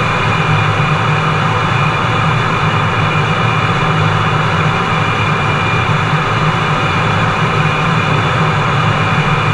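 Steady in-flight noise inside the cockpit of a Fairchild Republic A-10 Thunderbolt II: its two TF34 turbofan engines and the airflow make a constant low rumble with a thin steady whine above it.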